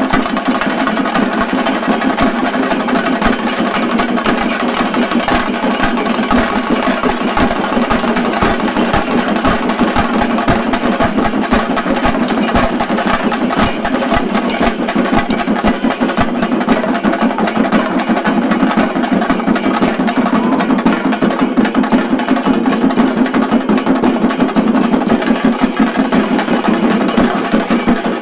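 Chenda drums of a shinkarimelam troupe played in a fast, unbroken barrage of stick strokes, loud and dense throughout.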